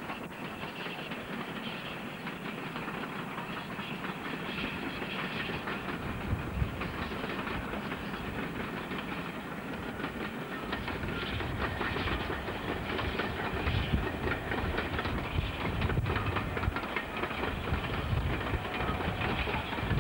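Steam-hauled passenger train passing, its wheels clattering over the rail joints, the sound growing steadily louder as the coaches roll by.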